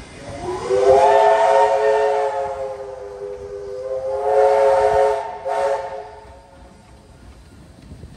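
Steam locomotive 3526's whistle blowing two long blasts, a chord of several notes that slides up in pitch as it opens, the second blast with a hiss of steam.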